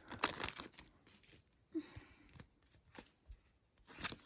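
Faint handling of a trading-card pack and its cards: scattered soft clicks and a brief rustle of the wrapper about two seconds in.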